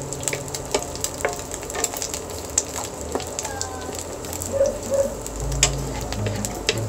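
Egg frying in hot oil in a nonstick pan: a steady sizzle with frequent sharp pops and crackles, while a wooden spatula is worked through the oil around the egg.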